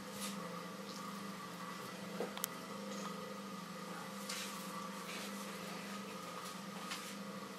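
Potter's wheel motor humming steadily, with the faint scrape of a long wooden tool rubbing inside the neck of a turning clay vase and two light clicks a little over two seconds in.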